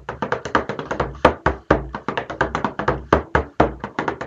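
Bodhrán played with a wooden tipper: a fast, steady rhythm of about six strokes a second, deeper strokes mixed among lighter taps.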